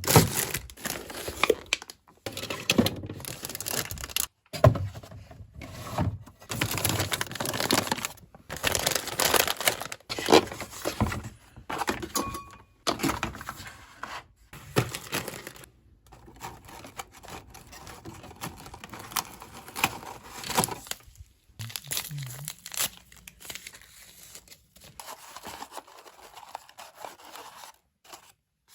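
Packaging being handled and opened: crinkling and tearing in short stretches, cut off abruptly several times.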